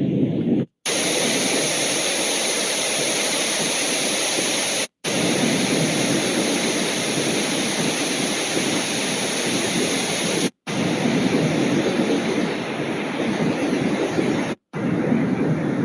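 Housbay white noise generator playing a run of steady noise sounds, switching sounds four times with a brief silence at each change. The first is a deep, low rumble; the ones after it are bright, full hiss.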